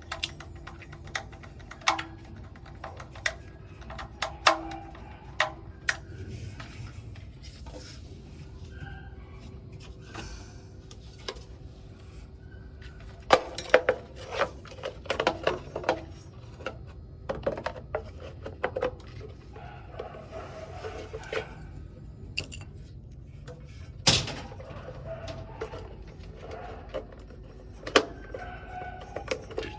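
Irregular clinks and knocks of hard parts and tools being handled, some in quick clusters, with one sharper knock about two-thirds of the way in, over a low steady hum.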